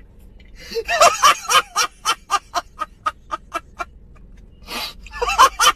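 A man laughing hard and loud in a long run of rapid 'ha-ha' pulses, about four a second, with louder whooping bursts about a second in and again near the end.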